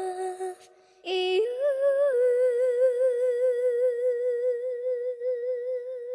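Background music: a woman's singing voice stops about half a second in, then comes back a moment later with one long held note with steady vibrato.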